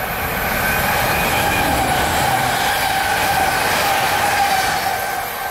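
Bombardier Talent 2 (DB class 442) electric multiple unit passing close by, with wheel-on-rail noise and a steady whine on top. It swells about a second in and eases off near the end.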